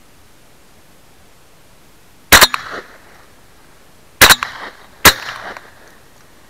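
Shotgun fired three times at flying wood pigeons, very loud and close from a camera fixed to the barrel. The first shot comes about two seconds in, then two more in quick succession, the last two under a second apart, each followed by a short echo.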